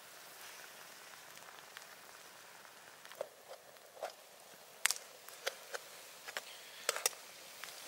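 Egg sizzling faintly under an aluminium mess tin on a charcoal grill, a soft even hiss. From about three seconds in come sharp metallic clicks and taps as the hot tin is gripped with a tool and lifted off the grill, the loudest about five and seven seconds in.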